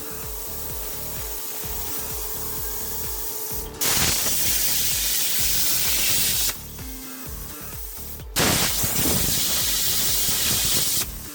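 CNC plasma cutting torch hissing in two stretches of a few seconds each, each starting and stopping abruptly, over background music.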